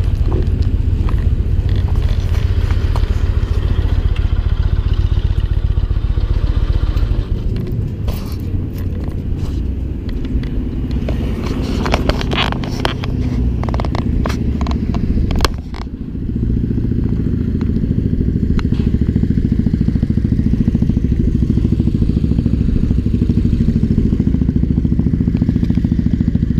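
Yamaha MT-01's big V-twin engine running at low speed and idle, a steady deep throb. Through the middle it drops back and a run of clicks and knocks comes over it, then the engine settles back to a steady idle.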